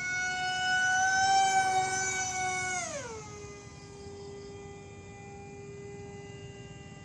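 Homemade aircraft's motor running at a high, whining pitch, then throttled back about three seconds in: the pitch slides steeply down to about half and it runs on steadily and quieter.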